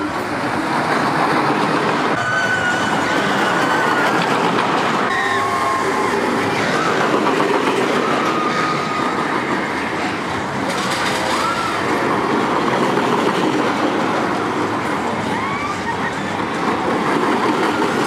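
Schwarzkopf Jet Star 3 steel roller coaster train running along its track: a steady, loud rumble of wheels on steel rails, with short high squeals now and then.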